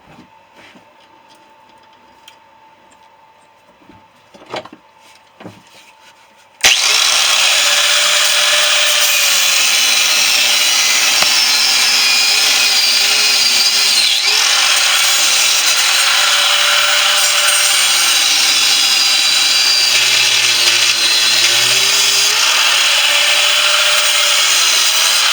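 A few faint knocks and clicks, then about six and a half seconds in an angle grinder starts abruptly and runs loud and steady, cutting into a refrigerator compressor's steel casing, its pitch dipping now and then under load.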